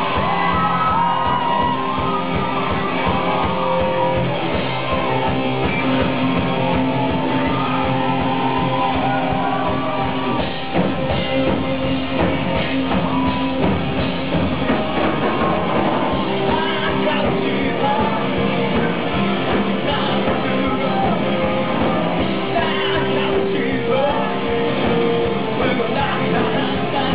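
Live pop-rock band playing, with electric guitars and a singer, echoing in a concert hall, with shouts from the crowd.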